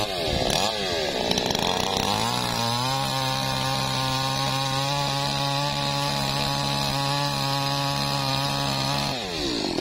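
Two-stroke chainsaw revving up and down a few times, then running at steady high speed for several seconds before the revs drop away near the end.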